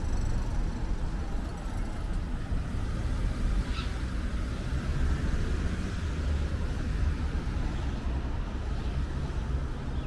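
City street traffic: cars driving through an intersection, a steady low rumble of engines and tyres.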